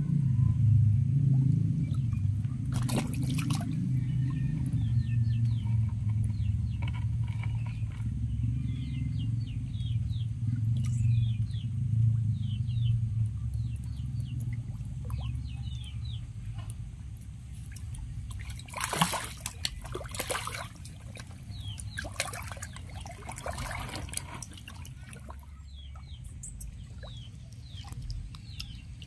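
Shallow muddy water sloshing and splashing as a hand works in it and fish thrash at the surface. A cluster of sharper splashes comes about two-thirds of the way through, over a low rumble that is strongest in the first half.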